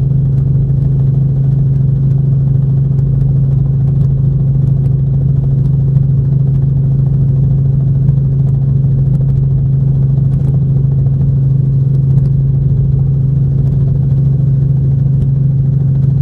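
Steady, unchanging drone of an aircraft cabin in flight, a strong low hum with fainter tones above it.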